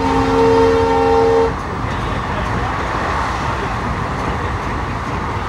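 A train horn sounds one steady blast lasting about a second and a half. After that comes the steady rumble of an ICF coach running at speed, with wheels on rail heard through the open window.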